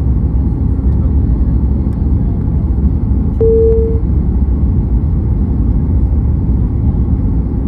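Airliner cabin noise on the landing approach: the steady deep rumble of the engines and airflow. About three and a half seconds in, a short single steady tone sounds briefly.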